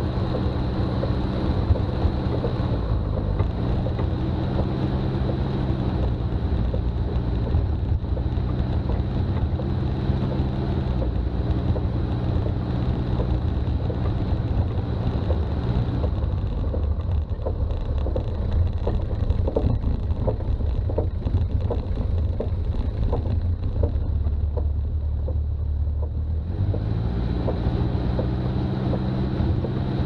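Diesel engine of a Toyota BJ40 4x4 running steadily under way, a low drone whose pitch drops and rises a few times as the revs change, over road and wind noise. A thin steady high whine runs under it, and a patter of light ticks comes in the middle.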